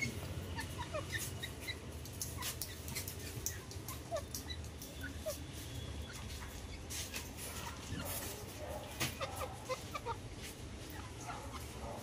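Grey francolin giving short, soft clucking notes while it pecks and scratches in gravelly soil, with scattered scratchy clicks from the ground.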